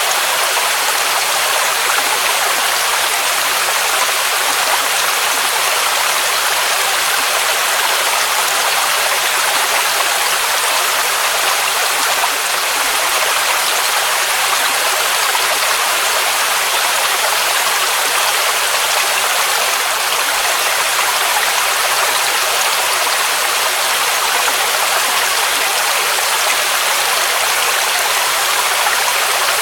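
Waterfall rushing in a steady, loud roar of falling water, with almost no deep rumble.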